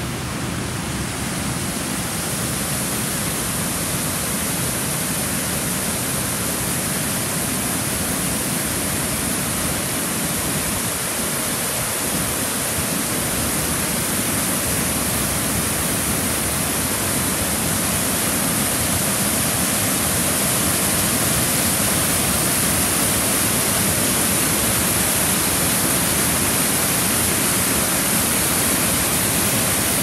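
Waterfall and creek water rushing over rock ledges, a steady noise that grows slightly louder from around the middle on.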